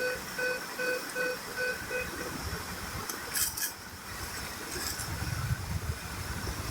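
Vehicle electronic warning beeper sounding about two and a half times a second, stopping about two seconds in; then a couple of short clicks, and a low engine rumble starting about five seconds in.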